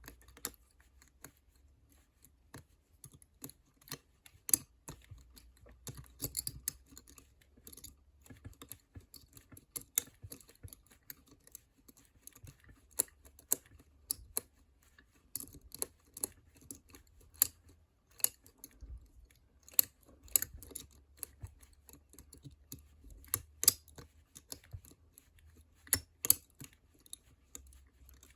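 Lollipop lever pick wire lifting the levers of a five-lever ERA padlock held under tension: irregular sharp metallic clicks and ticks as the levers are worked one after another.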